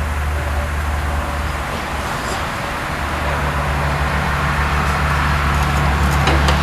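A steady, loud low machine hum with a broad rushing noise over it, and a few sharp knocks near the end.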